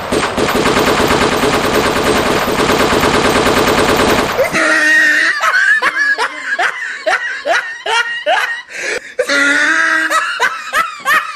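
Recorded automatic gunfire played loud through a loudspeaker: a rapid unbroken rattle of shots that stops sharply about four and a half seconds in. It is followed by short, high-pitched bursts of laughing.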